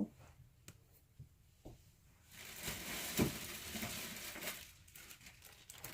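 Rustling and crinkling of something crinkly being handled, with a single knock about three seconds in; the first couple of seconds hold only a few faint clicks.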